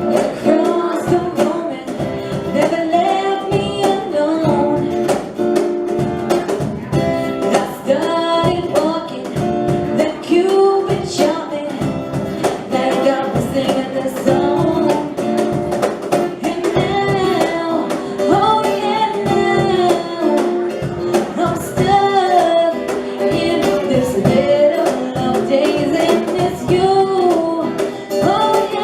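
Live reggae song: a voice singing a melody over plucked guitar, with an even rhythmic beat.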